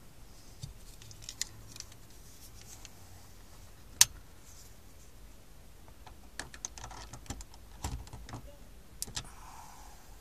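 Small plastic clicks and rattles of a USB flash drive being handled and pushed into the front USB port of a Jameson JS-8400 car stereo. There is one sharp click about four seconds in and a quick run of clicks in the second half as the drive goes in.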